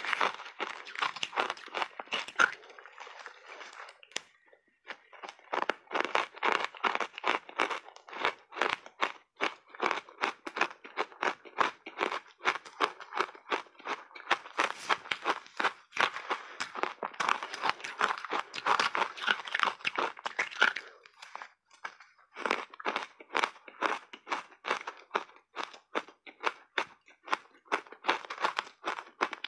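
Shaved ice dusted with matcha powder being chewed in big mouthfuls close to a clip-on microphone: dense, rapid crunching and crackling, easing off briefly twice.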